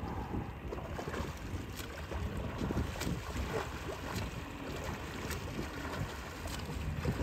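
Water splashing from a swimmer's freestyle arm strokes, a sharp splash about every second, over a steady low rumble of wind on the microphone.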